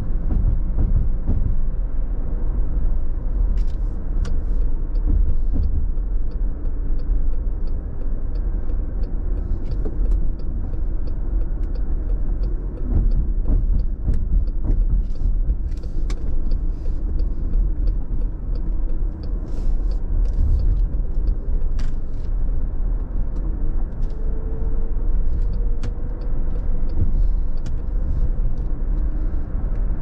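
Cabin sound of a 2020 Chrysler Pacifica Hybrid on the move: steady low road rumble with a faint whine from the hybrid drive motor. The whine rises in pitch past the middle, and a run of faint regular ticks comes a few seconds in.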